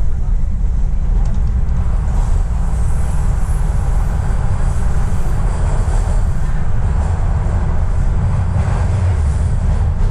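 TTC Line 1 subway train running, heard from inside the car: a steady heavy low rumble of wheels on rail with an even hiss above it.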